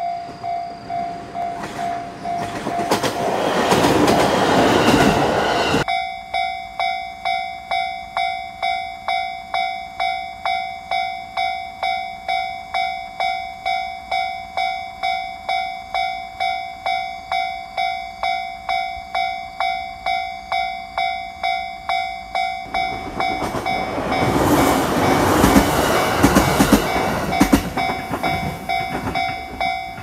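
Japanese level-crossing warning bell ringing over and over, about two strikes a second, while an electric train runs through the crossing with a loud rush of wheel and motor noise. The train's pass is heard twice, once during the first few seconds, cutting off suddenly, and again over the last several seconds.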